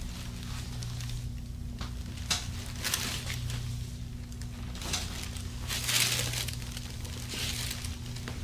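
Soft rustling and crinkling of cloth and table covering as a patient is handled on a treatment table, with a few short scuffs and a longer, louder rustle about six seconds in, over a steady low hum.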